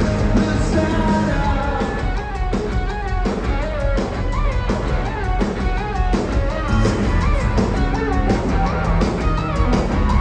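A rock band playing live, with electric guitars, drums and singing, heard loud from within the audience.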